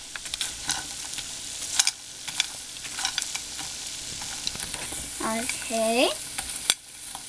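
A wooden spoon stirring popped popcorn and Skittles in a hot buttered frying pan: a steady sizzle with scattered clicks and scrapes as the spoon and popcorn move against the pan.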